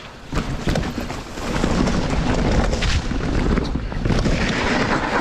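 Mountain bike riding down a rough forest trail: wind rushing over the action camera's microphone, with a low rumble and scattered clicks and knocks from the tyres and bike over roots and rocks. It gets louder about a second and a half in.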